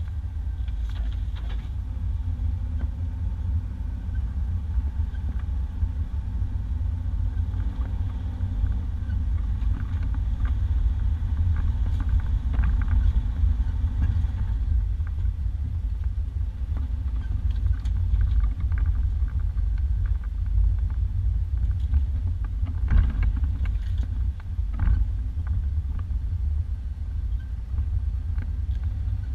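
A 1991 Isuzu Trooper driving along a dirt two-track, a steady low rumble of engine and tyres with occasional knocks and rattles as it goes over bumps.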